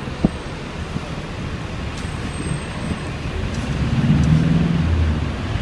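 Road traffic heard from inside a moving taxi: a steady rumble of engines and tyres. A low engine drone grows louder about four seconds in.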